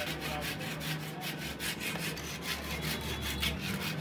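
Steel knife blade being hand-filed with a long file in quick back-and-forth rasping strokes, about five a second.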